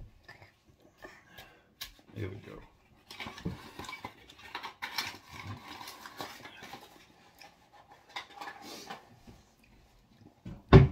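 Wet mouth sounds of a child licking brownie batter off a wire whisk, with scattered light clinks of utensils and a steel pot. A loud thump comes near the end.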